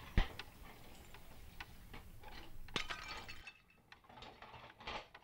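Faint, irregular clicks and light clinks over quiet room tone, with one sharp click just after the start.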